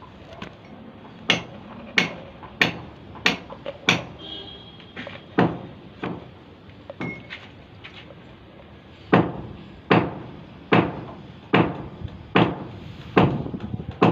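Repeated hammer blows in a steady rhythm, a little over one a second: a run of five strong strikes, a few lighter knocks, then a second run of six strong strikes.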